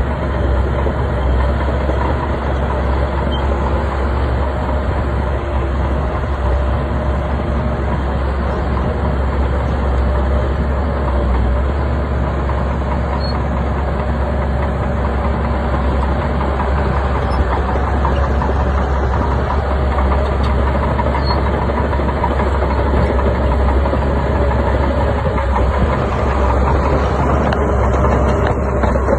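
Heavy bulldozer's diesel engine running steadily under load, a continuous low drone.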